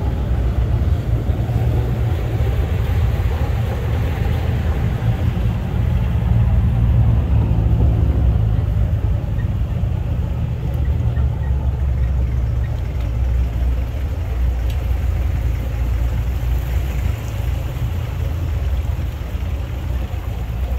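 Jeep engine running and road noise as it drives, a steady low rumble heard from on board.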